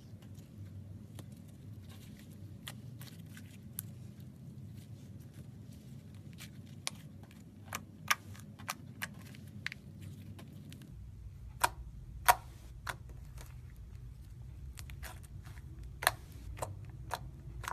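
Irregular sharp clicks and small pops from sticky slime being handled, over a faint steady hum. The loudest clicks come in the second half.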